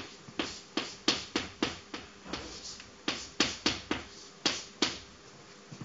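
Chalk writing on a blackboard: a quick irregular series of sharp taps and short strokes, about three a second, easing off for a moment a little past four seconds in.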